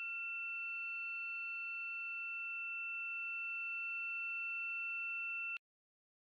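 A steady, high-pitched electronic tone at one unchanging pitch, held for about five and a half seconds and then cut off suddenly.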